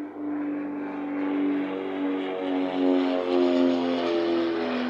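Piper Seneca twin with Continental TSIO-360 engines flying low overhead: a steady propeller drone with a regular pulsing beat. It grows louder as the plane passes and drops slightly in pitch near the end.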